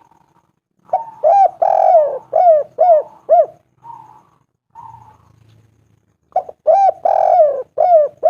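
Spotted dove cooing in two phrases, each a quick run of arching coos, the first about a second in and the second about six seconds in, with a few soft short notes in between.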